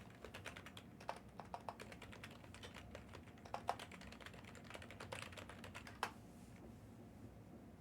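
Typing on a computer keyboard: quick, irregular keystrokes for about six seconds, then they stop.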